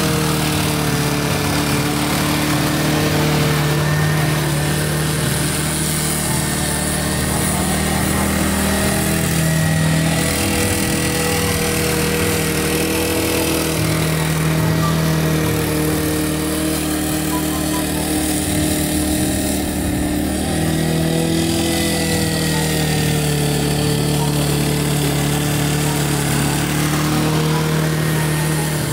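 Honda HRG465 walk-behind lawn mower's single-cylinder four-stroke engine running steadily under load as the mower cuts through tall, dry grass, its pitch wavering slightly as the grass loads the blade.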